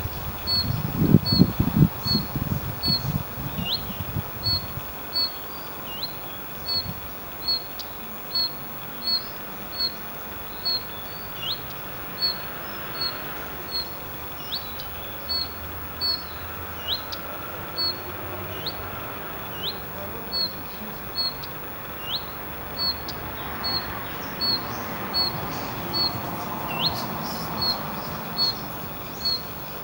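Male common redstart calling: short high notes repeated about one to two times a second, with a longer swooping whistle every couple of seconds. A low rumble runs under the first few seconds.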